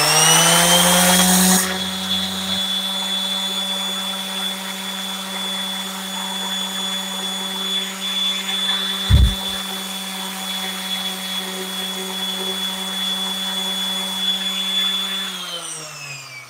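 Harbor Freight electric random-orbit palm sander running against acrylic with a steady hum and high whine, then switched off and winding down near the end. A single low thump about nine seconds in.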